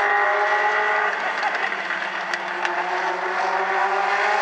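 Several Legends race cars' Yamaha motorcycle engines running together at speed around the oval, their pitch falling a little then rising again near the end as they come back on the throttle. Two sharp clicks sound about halfway through.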